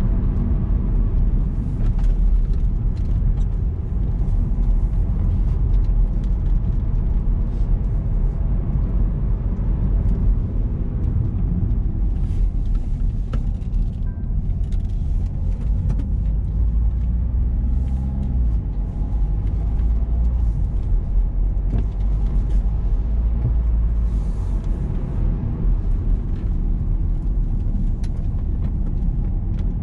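Car on the move: a steady low rumble of engine and tyres on the road, with brief hissing bursts now and then.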